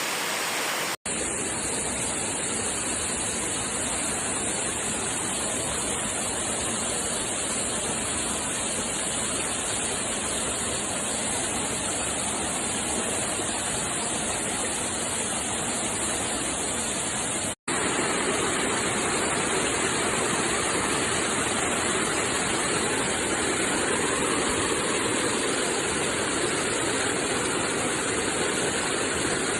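Steady rush of water from a waterfall, cut off for an instant twice, about a second in and a little past halfway, and a touch louder after the second break.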